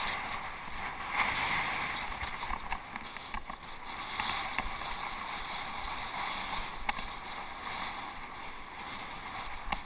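Bicycle ridden off-road: a steady hiss of tyres rolling over rough ground, with frequent small clicks and rattles from the bike.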